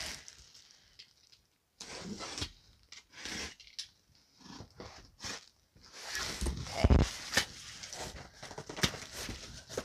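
Box cutter slicing the packing tape on a small cardboard box, with cardboard scraping and rustling in short bursts, and a dull thump about seven seconds in as the box is pulled over.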